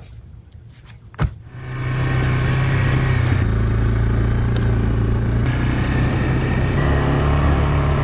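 Small ATV engine running steadily as it is ridden along a dirt trail. After a sharp click about a second in, the steady engine drone starts.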